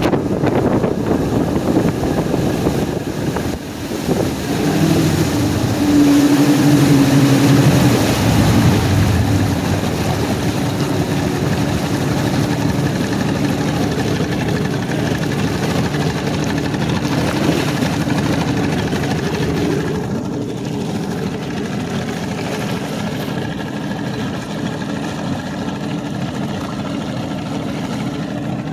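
Mariner Magnum II two-stroke outboard running under way at speed, its steady engine tone mixed with rushing water from the hull and wake. The sound is loudest a few seconds in and eases off somewhat about two-thirds of the way through.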